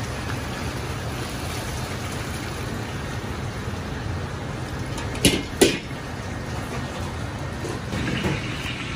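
Boiled spaghetti and its cooking water poured from a wok into a stainless-steel mesh colander, over a steady rushing noise. A little over five seconds in come two sharp clanks in quick succession.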